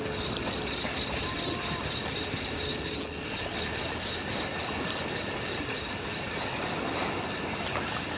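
Spinning reel being cranked steadily to retrieve a hairtail lure, its gears and rotor giving a quick, even mechanical ticking.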